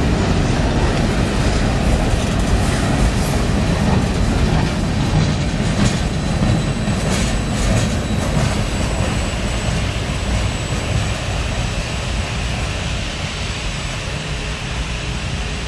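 Freight train cars rolling past at close range: a steady low rumble of steel wheels on rail with clacking over the joints and a faint wheel squeal. The last car passes about eight seconds in, and the rumble then eases as the train moves away.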